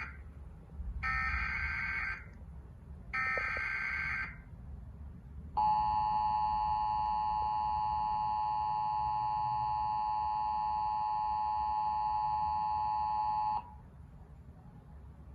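Emergency Alert System broadcast: the SAME header's data warble, three roughly one-second bursts about a second apart, the first already under way. About five and a half seconds in comes the EAS two-tone attention signal, a steady pair of tones near 850 and 960 Hz held for about eight seconds, then cut off. Together they signal the start of an emergency alert, here a severe thunderstorm warning.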